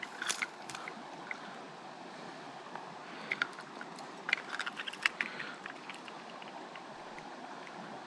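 Creek water running steadily, with scattered brief sharp sounds near the start and again between about three and five seconds in.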